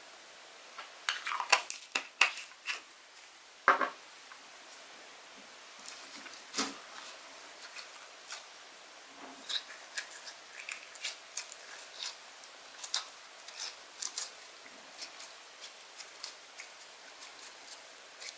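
Slime being squeezed and stretched by hand, giving irregular sticky clicks and pops. A burst of louder pops comes about a second in, then lighter scattered clicks follow.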